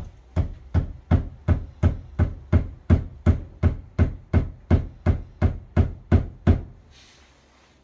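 A run of even, heavy knocks, close to three a second, about eighteen in all, stopping about six and a half seconds in.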